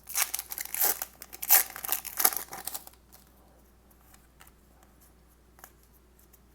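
Foil trading-card booster pack crinkling and tearing open for about three seconds, then a few faint ticks.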